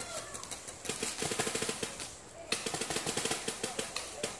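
Paintball markers firing in rapid strings of pops, several shots a second, with a short break about two seconds in before the firing starts again.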